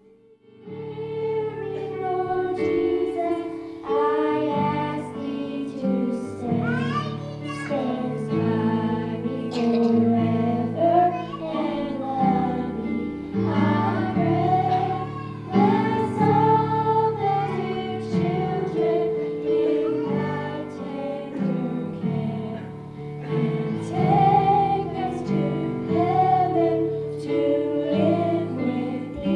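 A small group of girls singing a song into microphones over held backing chords. The music starts about a second in.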